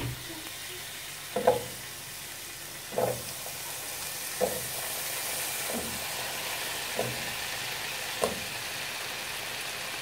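Oil sizzling in a frying pan as raw potato cubes are tipped in. There are six soft thumps, about one every second and a half, as pieces land, and the sizzle grows a little louder partway through.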